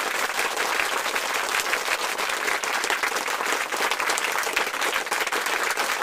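Applause: many hands clapping, a dense steady patter that runs on without a break.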